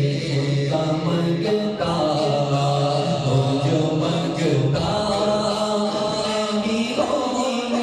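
Unaccompanied devotional chanting by male voices, a naat-style recitation sung in long held, gliding notes with no instruments or beat.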